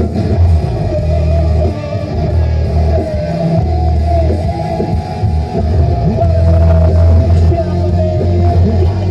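Rock song playing loudly through a car stereo, with a heavy bass line and electric guitar.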